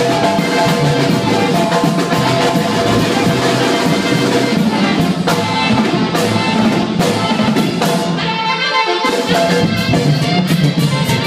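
Live tamborazo band playing: saxophones and a brass horn over a drum kit. The bass and drums drop out for a moment about eight and a half seconds in, then the full band comes back.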